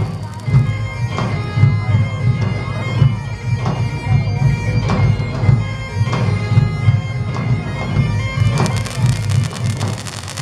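Bagpipe music: a steady drone under a piped melody, with a regular beat.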